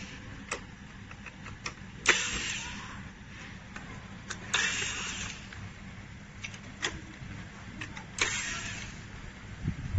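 Screws being taken out of a robot vacuum's plastic base with a screwdriver: scattered sharp clicks and three short noisy bursts, each about a second long, near two, four and a half and eight seconds in.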